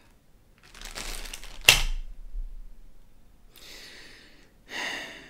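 Clear plastic bag with a pair of sunglasses inside crinkling as it is handled, with one sharp clack as it is put down on a wooden table about a second and a half in. Brief rustles follow.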